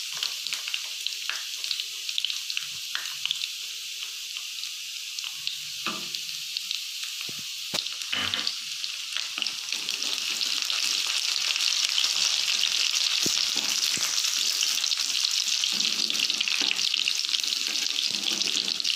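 Chopped garlic and ginger sizzling in hot oil in a kadai while being stirred with a spatula, with a couple of knocks against the pan. The sizzle grows louder a little past halfway.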